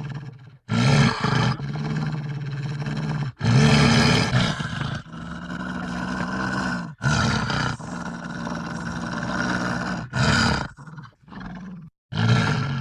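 Wolf growling: a run of low, drawn-out growls, each a second or two long, with short breaks between them.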